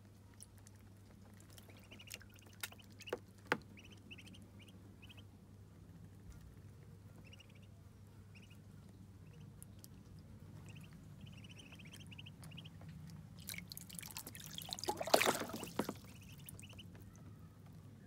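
Muscovy ducklings peeping in short quick runs of soft high calls while they swim, with a few sharp drips or clicks of water early on. About fifteen seconds in comes a louder splash of water lasting a second or two.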